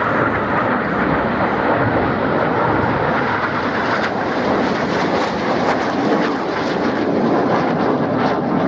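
BAE Hawk T1 jet trainers flying over in formation, a steady loud jet noise.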